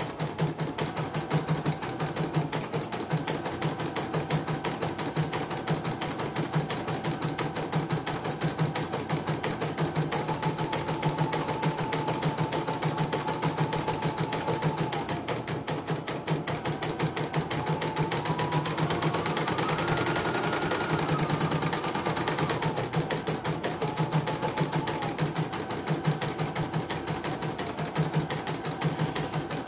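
CNY portable computerised embroidery machine stitching: a fast, even needle clatter under a motor whine that shifts in pitch and rises higher for a few seconds about two-thirds of the way through. It runs without the 'krek krek' crackle, after a setting that had been too close was backed off.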